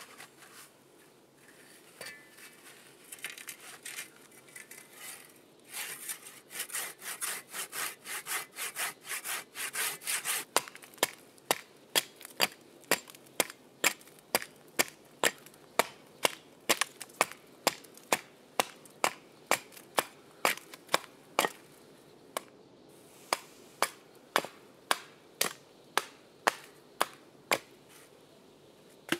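A saw rasping through a birch log in quick, even strokes. About ten seconds in it gives way to a Swedish forged axe striking an upright birch log with light, sharp blows about two a second, which pause briefly near two-thirds of the way through.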